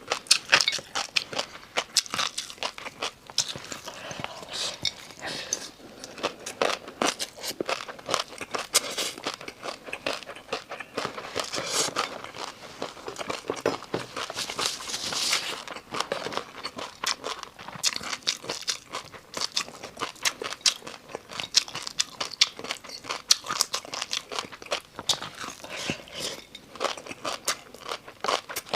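Close-miked eating: a person biting and chewing crunchy food, with many sharp crunches in quick, irregular succession.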